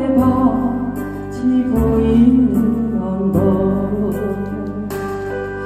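Instrumental part of a slow Korean ballad, played from a backing track: a melody over sustained bass and chords, with light cymbal ticks.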